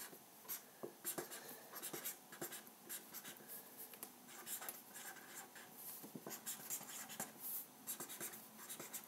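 Felt-tip pen writing on sketchbook paper: a run of short, irregular squeaky scratches as the letters are formed, with a few light taps of the tip on the page.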